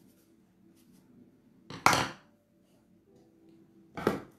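Two clattering knocks of hard objects handled on a wooden tabletop, about two seconds apart, the first louder.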